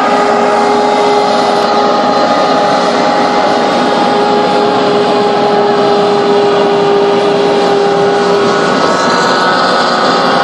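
Hovercraft rescue boat running at speed, its engine and air propeller making a loud, steady drone with a constant hum that stays level throughout.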